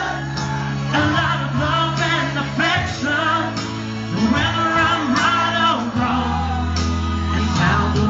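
A man sings live into a microphone over amplified backing music, with members of the audience singing along.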